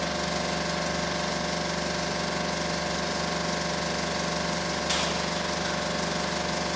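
35 mm cinema film projector running: a steady mechanical whir with a hum of several steady tones. A single sharp click about five seconds in.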